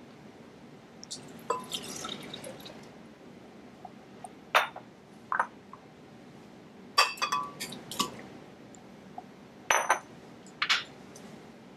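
Juice poured into a glass blender jar, then a series of sharp clinks and knocks as chunks of banana drop into the jar and glass bowls and a measuring cup are set down on a stone counter.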